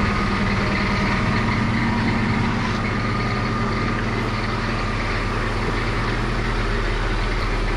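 2005 Jeep Liberty running steadily at idle, with noise from its five-speed manual transmission in the hum; the transmission is noisy and does not sound good, and it is missing mounting bolts.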